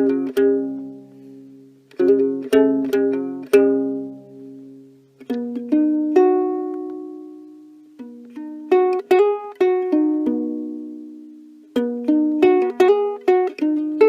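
Ukulele strumming chords. Short groups of quick strums alternate with single chords that are left to ring out and fade, around the middle.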